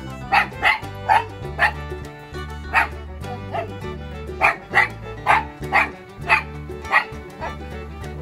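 Toy poodle giving about a dozen short, sharp barks in irregular bursts: territorial warning barks at a cat to drive it off. Background music plays underneath.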